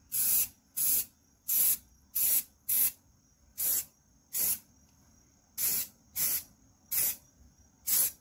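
Aerosol spray-paint can hissing in about eleven short bursts of roughly a third of a second each, with brief gaps between: quick, light passes of paint.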